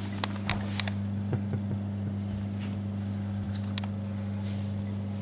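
A steady low electrical hum, with scattered light clicks and rustles over it, most of them in the first second.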